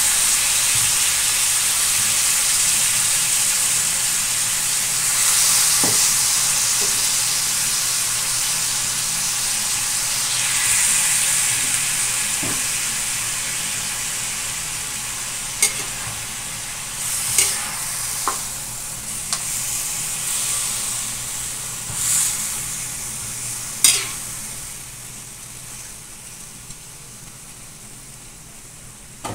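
Chicken pieces sizzling in a hot aluminium wok, the sizzle slowly dying down. In the second half a metal spatula scrapes and clacks against the wok about half a dozen times as the chicken is stirred.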